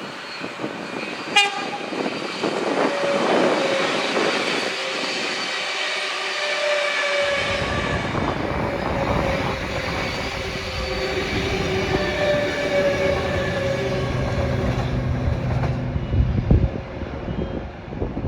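A train passing through, with a long drawn-out whining tone over the running noise of the wheels on the rails. Heavy wind buffets the microphone.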